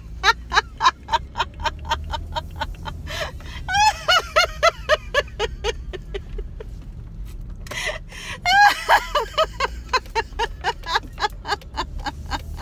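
A woman laughing out loud in quick 'ha-ha-ha' bursts, about five a second, with a short break around the middle: deliberate laughter-yoga laughter, done for its own sake and not set off by anything funny. A low, steady rumble of the running car lies underneath, heard inside the car's cabin.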